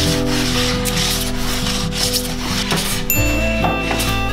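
Metal hand plane shaving a poplar board in quick repeated strokes, each a hiss of the blade cutting, over background music.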